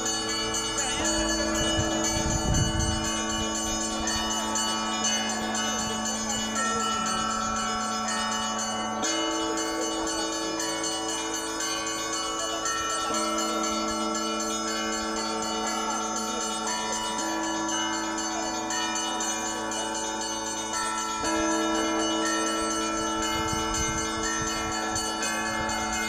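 Russian Orthodox church bells ringing a continuous peal: several bells of different pitch struck together and in quick succession, their tones overlapping and ringing on without a break.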